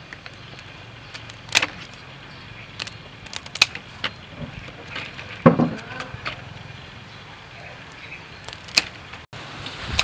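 Scattered sharp clicks and knocks of cooking work, such as utensils and ingredients being handled, over a steady low hum; the loudest knocks come about a second and a half in and five and a half seconds in.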